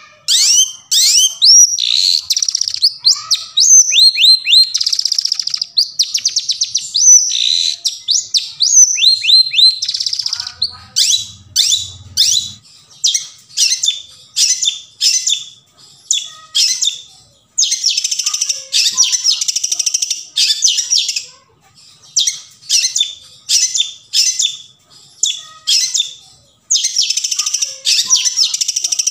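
Long-tailed shrike (cendet) singing: a fast, varied run of sharp whistled notes and chatter, with two longer harsh, scratchy stretches, one past the middle and one near the end.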